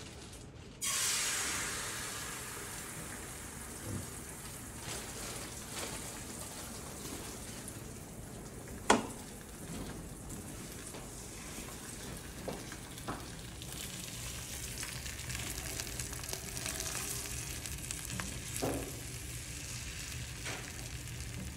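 Beaten eggs poured into a hot frying pan start sizzling loudly about a second in, then settle to a steady sizzle as they cook into scrambled eggs. A spatula scrapes and taps against the pan a few times while the eggs are stirred; the sharpest tap comes about nine seconds in.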